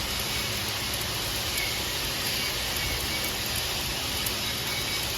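Stick (SMAW) welding arc burning steadily on an overhead fillet weld: a continuous crackling sizzle with small sharp pops.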